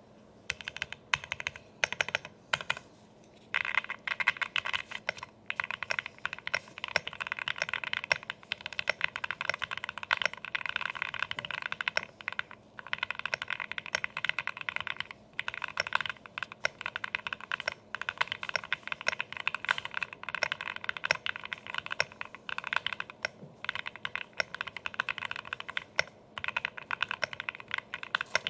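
Typing on a NEKEY Luck68 gasket-mounted mechanical keyboard with an FR4 plate, CNC aluminium case and PBT keycaps. Keystrokes come in a fast, steady stream of clicks, with a few brief pauses.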